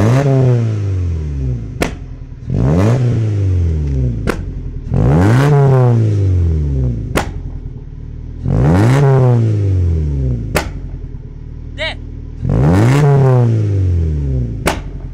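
Fiat Punto HGT's 1.8-litre four-cylinder petrol engine, through a twin-tip exhaust, revved in five quick blips, each rising sharply and falling back to idle. Each rev is followed by a single sharp pop from the exhaust as the revs drop: backfire on the overrun.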